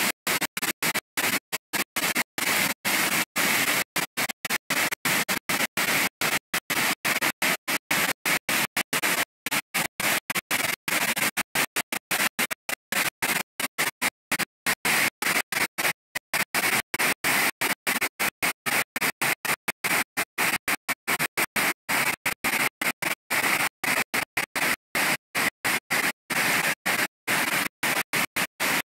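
Water rushing over the rock ledges at the top of Salmon River Falls, a steady loud rush, chopped by rapid irregular dropouts several times a second so that it stutters.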